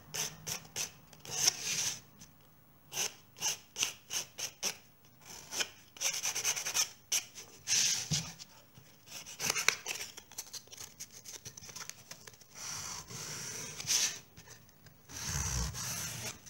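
Sandpaper rubbing over the edges and corners of a white-painted picture frame, scuffing through the paint to bring the original colour back out for a distressed, shabby look. It goes in quick scratchy back-and-forth strokes at first, then in longer rubs, with a dull low bump near the end.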